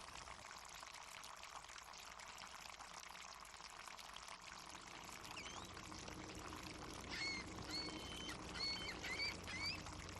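Harbour water lapping and splashing, a steady even wash, with seagulls calling: a couple of short cries about halfway through and a quick run of squealing calls in the second half.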